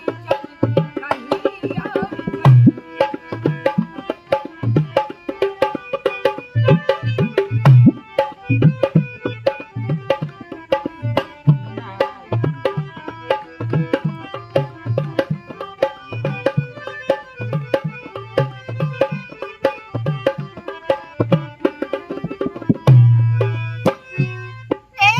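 Dholak drum beaten in a quick, steady rhythm of deep bass strokes and sharp slaps, over a harmonium holding sustained reed notes: an instrumental passage of Indian folk music.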